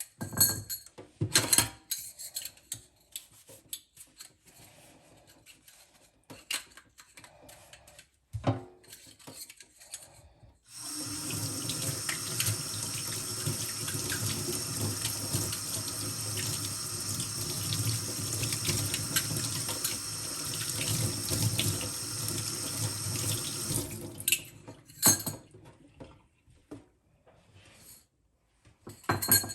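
Water running from a tap into a sink, a steady rush that starts about a third of the way in and stops about thirteen seconds later. Light knocks and clicks of things being handled come before and after it.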